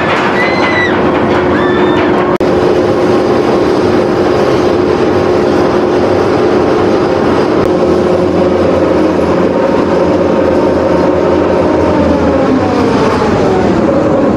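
Steel roller coaster chain lift running as a loaded train climbs the lift hill: a steady drive hum over the clattering of the chain and track. Near the end the hum's pitch drops away.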